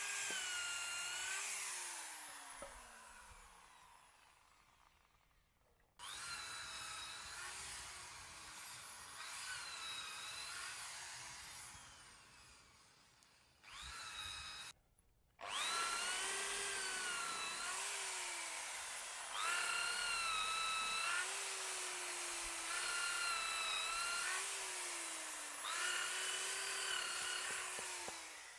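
Electric drill boring holes into hardwood logs for shiitake spawn plugs: a motor whine that repeatedly dips in pitch as the bit bites into the wood and then recovers, in several stretches with abrupt cuts between them.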